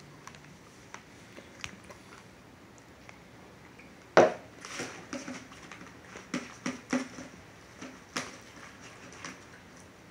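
Scattered handling noises of objects being moved and set down: small clicks and knocks, with one sharp, loud knock about four seconds in followed by a run of shorter ones.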